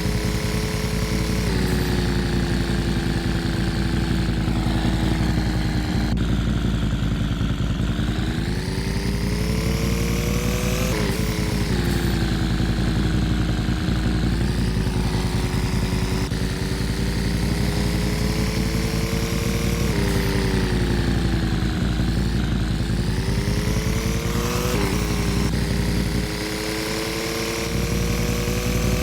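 A motor vehicle's engine running continuously, its pitch rising and falling every few seconds with several abrupt changes, over a heavy low rumble.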